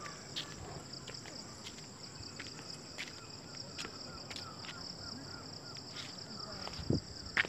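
Insects chirring steadily at a high pitch, with scattered light clicks from footsteps on the stone path and a run of faint chirps about two to three seconds in.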